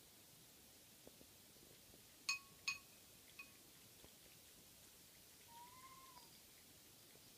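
A domestic cat meowing. Two short, sharp meows come about half a second apart, then a fainter one, and a couple of seconds later a longer, softer meow that rises and falls.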